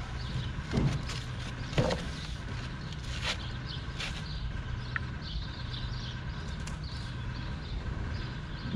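Hollow concrete blocks being handled and set down, with work-boot footsteps: a few sharp knocks, the loudest about one and two seconds in, over a steady low hum.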